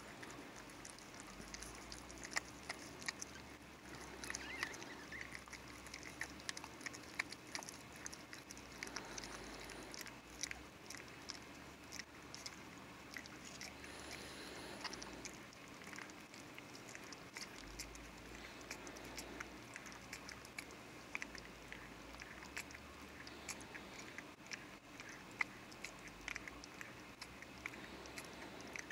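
Mother dog licking and chewing at her newborn puppy just after whelping: faint, irregular wet smacking and clicking.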